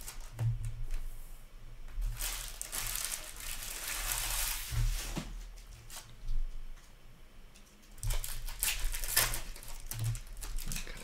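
Trading cards being handled and sorted by hand: paper card stock rustling, sliding and crinkling in irregular spells, with a quieter stretch a little past the middle.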